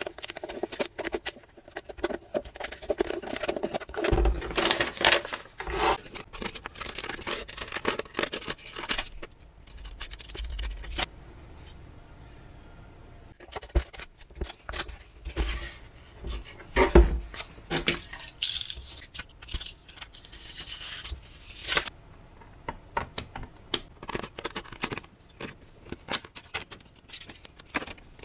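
Paper rustling and scraping as a paper template is handled and pressed around a 3D-printed plastic model-plane fuselage, with scattered knocks on the wooden tabletop. Scissors snip near the end.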